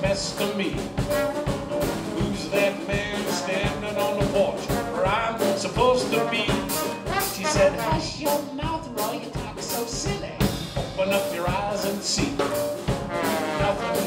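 Live New Orleans rhythm-and-blues band playing an instrumental break, with no singing.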